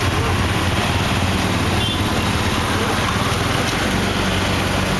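Auto rickshaw engine running steadily with a low hum, heard from inside the open passenger compartment, mixed with the noise of surrounding road traffic and motor scooters.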